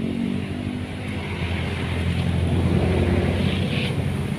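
Small motorcycle engine running as the bike is ridden, a steady low hum that gets louder about a second and a half in.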